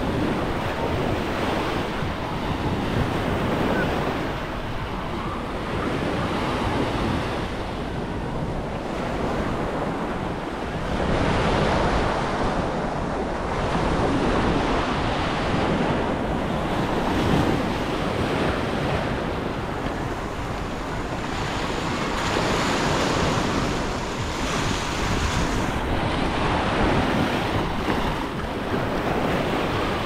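Sea waves washing in and breaking on a beach, swelling and easing every few seconds, with wind rumbling on the microphone.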